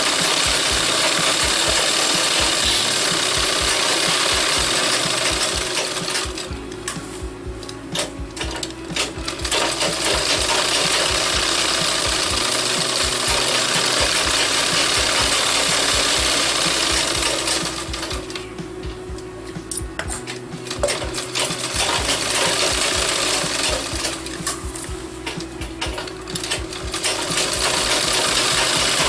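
Sewing machine stitching at speed in long runs, stopping briefly three times: about six, eighteen and twenty-four seconds in.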